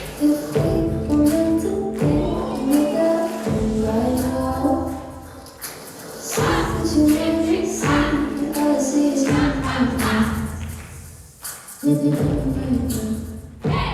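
Recorded song playing: a sung melody moving in steps over sustained low notes, with a few short breaks in the phrasing.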